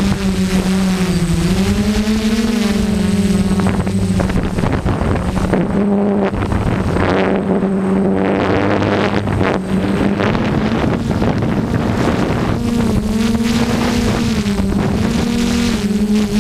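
Multirotor drone's motors and propellers humming loudly, heard from the drone's own camera. The pitch dips and rises as the motors change speed, over a steady rush of wind on the microphone.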